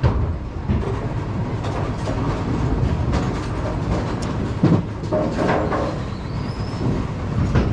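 Steady rumbling, clattering machinery noise from running bowling pinsetters, with scattered knocks and clanks.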